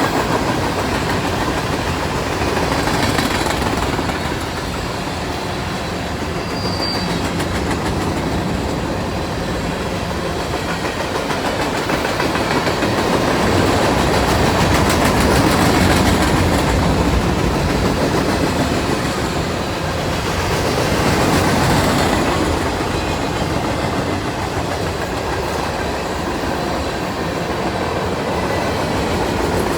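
Freight cars of a manifest train rolling past, steel wheels clicking over the rail joints in a steady rumble that swells and eases, with one brief high wheel squeal about seven seconds in.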